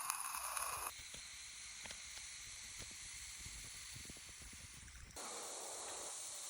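Steady hissing of a flame burning in a tin-can camp stove, with a few faint crackles. The hiss changes abruptly about a second in and again near the end.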